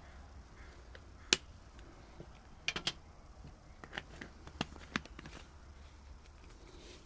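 Sharp clicks and taps from measuring spoons and spice containers being handled, one loud click about a second in, a quick cluster of three near three seconds, and a few lighter ticks around four to five seconds.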